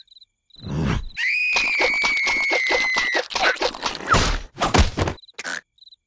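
Cartoon sound effects: a long high-pitched squeal held for about two seconds, over a rapid run of clicks and knocks, followed by more scattered knocks and thumps.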